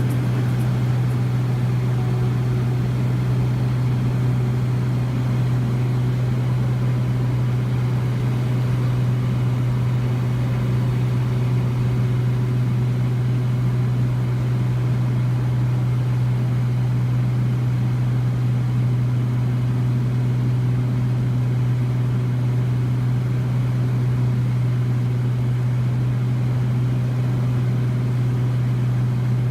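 Cessna 207's single piston engine and propeller droning steadily, with a constant low hum and no change in power.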